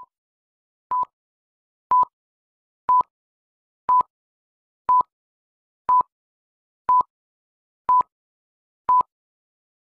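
Countdown-leader beeps: short electronic beeps of one steady pitch, one each second, about nine in a row.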